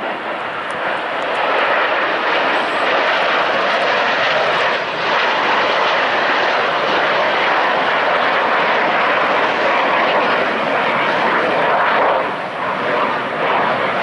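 Blue Angels F/A-18 Super Hornet fighter jets' turbofan engines passing low overhead: a loud, steady jet roar that swells a second or so in and eases slightly near the end.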